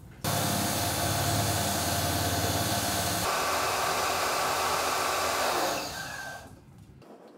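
Electric pressure washer running, its motor hum under the hiss of the water jet rinsing soap off a car's paint. It starts abruptly and dies away about six seconds in.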